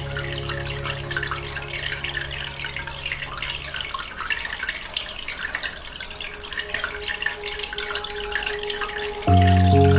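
Aquarium water bubbling and trickling in a steady fizzing patter. A soft held music chord fades out about four seconds in, and a louder new chord comes in suddenly near the end.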